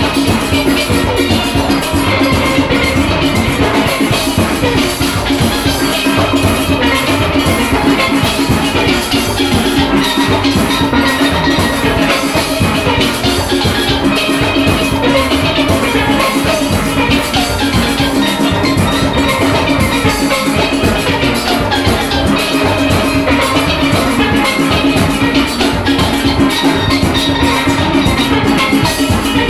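A steel orchestra playing live: many steelpans with a drum kit, loud and continuous.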